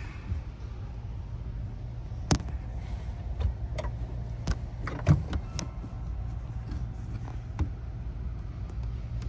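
Irregular clicks and knocks of a metal socket extension bumping against plastic trim and body metal as it is worked up behind a side panel, the loudest a little after 2 seconds and about 5 seconds in, over a steady low hum.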